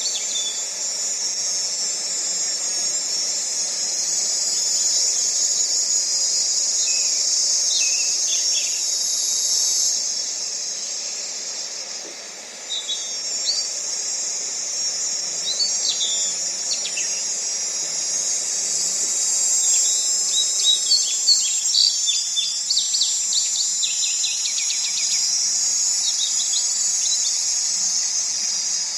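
A steady, high-pitched insect chorus, like crickets, with scattered bird chirps over it. It dips briefly about twelve seconds in, and a quick run of repeated bird chirps comes about two-thirds of the way through.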